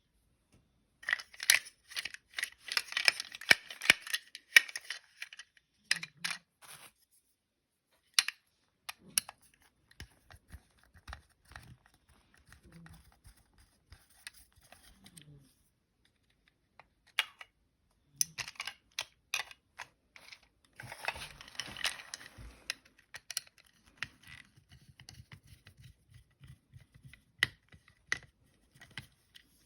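Small plastic toy vehicles being handled: scattered clicks and clacks, with two longer bouts of rustling and clattering, one near the start and one about two-thirds of the way in.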